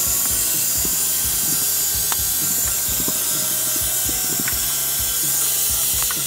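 Battery-powered handheld pressure washer running steadily, its jet of water hissing against the wood.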